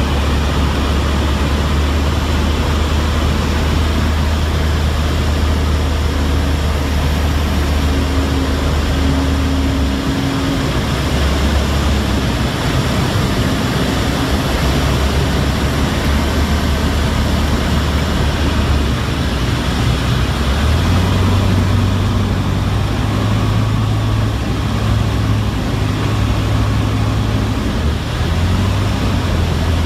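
Ultralight aircraft's piston engine and propeller running, heard inside the cockpit with rushing air noise. The engine note wavers about ten seconds in and rises to a higher pitch about twenty seconds in.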